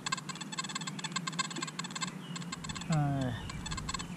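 Nokta Makro Simplex metal detector giving one short, warbling target tone about three seconds in, the signal of a buried coin, a wheat penny. Rapid crackling clicks and a low steady hum run underneath.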